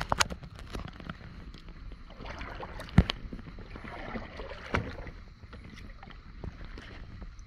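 Kayak on the water: lake water splashing and lapping against a plastic hull, with a few sharp knocks against the boat, the loudest about three seconds in.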